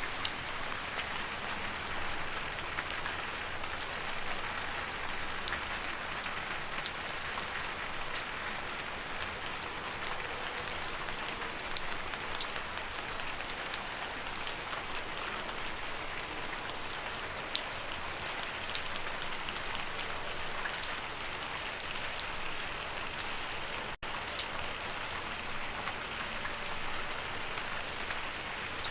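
Steady rain falling: a dense, even hiss with many individual drops ticking sharply close by. The sound breaks off for a split second once, late on.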